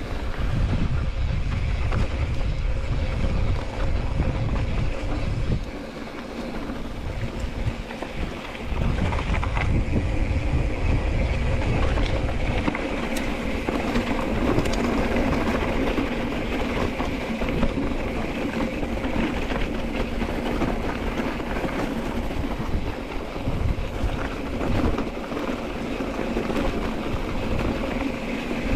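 Mountain bike ridden over rough ground, heard from on board: a steady rattling noise with wind buffeting the microphone in heavy gusts during the first half.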